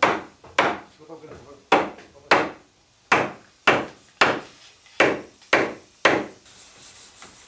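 Mallet striking the top rail of a wooden railing set on turned wooden balusters. It gives a steady series of sharp wooden knocks, about two a second, with a brief pause near the middle.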